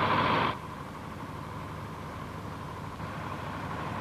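Lorry engine running, cutting off abruptly about half a second in and leaving steady, quieter background noise.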